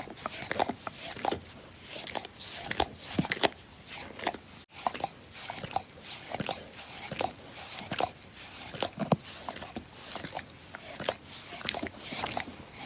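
A dog licking: a continuous run of quick, irregular smacks and slurps, several a second, broken by a momentary gap about a third of the way in.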